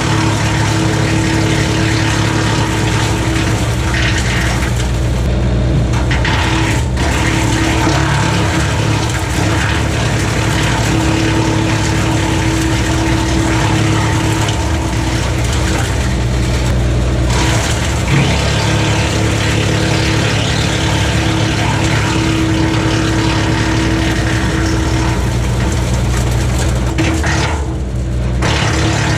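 A 4-inch BECO PTO-driven wood chipper running off a Kubota LX2610 compact tractor's three-cylinder diesel. The rotor chews hardwood limbs with a steady drone and a rough rattle that eases off briefly a few times as pieces are fed through.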